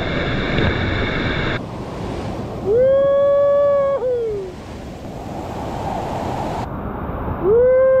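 Waterfall and river rushing steadily. Over the water, two long whooping yells rise and fall in pitch: one about three seconds in that lasts over a second, and a shorter one near the end.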